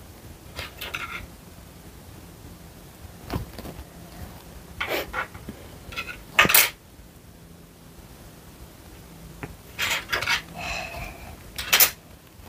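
Scattered clicks, light taps and rustles of small items handled on a tabletop, with the sharpest taps about six and a half seconds in and again near the end.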